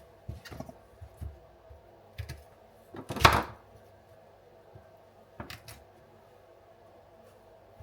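Objects being handled and set down on a hard surface: a few soft knocks and clicks, with one louder knock a little over three seconds in.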